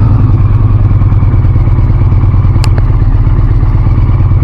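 2024 Indian Pursuit's V-twin engine idling steadily just after starting, on a second start to confirm that a new torque limiting gear has cured its hard starting. A single sharp click sounds over the idle about two and a half seconds in.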